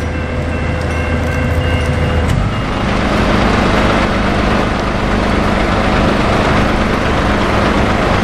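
The end of a farewell horn blast: a steady chord of several tones over a low engine rumble, cut off about two seconds in. Steady road and engine noise follows.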